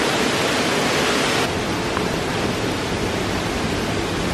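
Waterfall: a steady rush of falling water. About a second and a half in, the sound abruptly loses some of its hiss.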